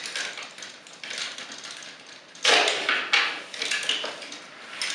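Hard plastic parts of a transformable toy robot being handled: a sharp clack about halfway through, followed by a few lighter clicks and knocks.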